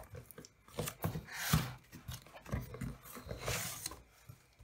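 Cardboard packaging scraping and rustling as a framed picture is pulled out of its box, in irregular scrapes, the loudest about one and a half seconds in.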